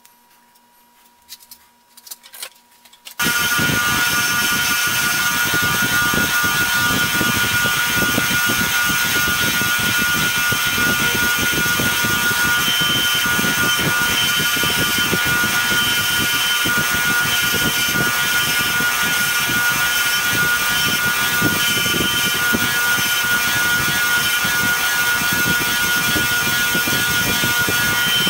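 A few light clicks, then about three seconds in a fine wire wheel on a Foley 1055 starts abruptly and runs at a steady, even level with a high whine. A steel pipe-threading die is held against the spinning wire to buff off hardened varnish and swarf.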